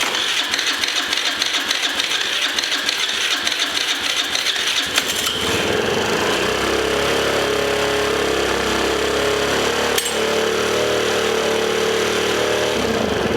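Power tool running: a rough, rattling grind for about the first five seconds, then a steadier pitched hum, with a sharp click about ten seconds in.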